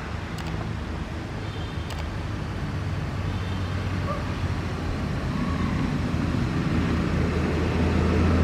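A motor vehicle engine running with a steady low hum, growing gradually louder.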